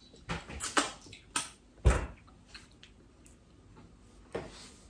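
Short wet smacking and clicking sounds of cake batter being tasted off fingers, with one dull knock about two seconds in.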